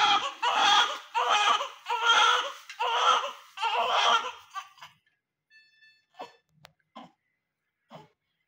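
Newborn baby crying: a run of short wails in quick succession, more than one a second, that stops about halfway through. After that only faint scattered small sounds remain.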